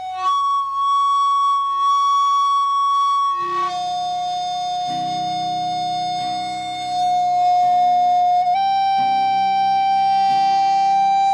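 Flute playing long, held notes that step to a new pitch a few times, with guitar chords underneath entering about three and a half seconds in: a slow improvised blues jam.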